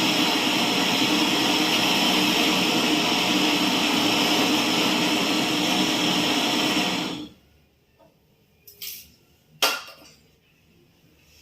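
A loud, steady whooshing mechanical noise that cuts off suddenly about seven seconds in, followed by a few light clicks and knocks.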